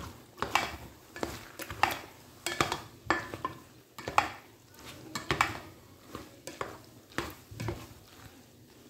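Plastic spatula stirring cooked macaroni in a metal pot, with irregular scrapes and knocks against the pot.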